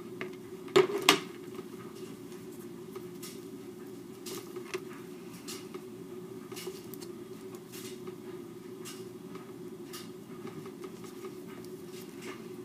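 Handling sounds of crafting: two sharp knocks about a second in, then light scattered clicks and rustles as fingers fold and press craft-foam strips around a paper-wrapped gum pack, over a steady low hum.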